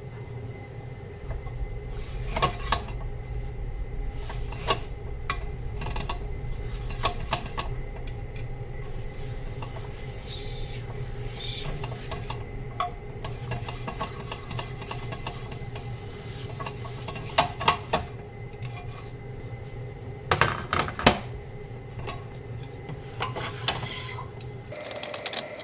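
Kitchen utensils clinking and scraping against pots and dishes during cooking, with a hiss through the middle stretch. A quick cluster of clinks near the end is the loudest.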